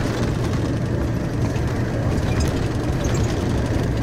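Tour bus driving along, heard from inside the cabin: a steady low engine and road rumble.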